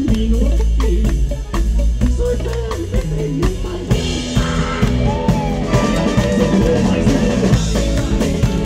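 Live band playing an up-tempo song: accordion, electric guitar, bass and a drum kit keeping a steady beat, with a male voice singing.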